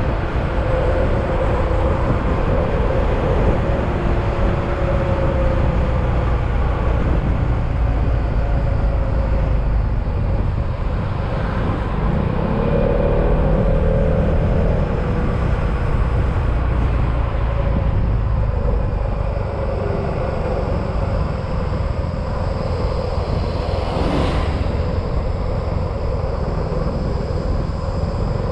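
Yamaha XMAX scooter's single-cylinder engine running on the move, under steady wind and road rumble, its note wavering with speed. A single sharp click comes late on.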